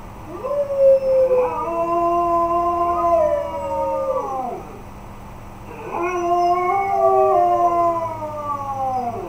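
Husky howling: two long howls of several seconds each, the pitch sliding down as each one ends, with a short pause between them.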